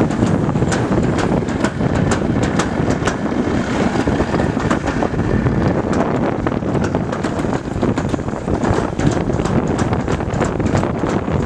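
Toboggan sled running fast down a metal slide chute: a loud, steady rumble of the runners on the track, with frequent clicks and knocks and wind buffeting the microphone.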